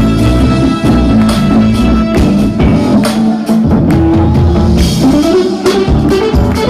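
Jazz-fusion band playing live and loud: drum-kit hits driving a full band, with a low line that moves up and down underneath.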